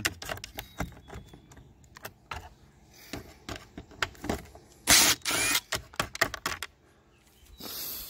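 Cordless drill with a Torx bit backing out rusty screws from a van's mirror housing: scattered clicks and rattles of the bit, screw and plastic housing, with a short burst of the drill running about five seconds in.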